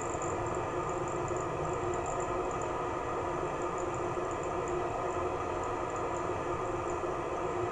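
Class 47 radiator cooling fan running with a steady whir over the idling Sulzer 12LDA28 diesel, a recording of the real locomotive played through the model's DCC sound decoder and speaker (function F20).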